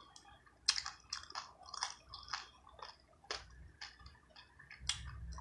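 A person chewing and biting crunchy fried seafood, with irregular sharp crunches and mouth clicks.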